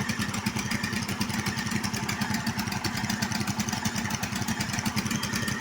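Engine of a ground-drilling rig running steadily with an even, rapid pulsing beat.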